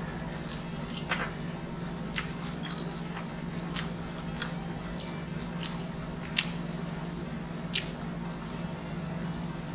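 Close-miked chewing and biting of pizza: wet mouth smacks and sharp clicks every second or so, over a steady low hum.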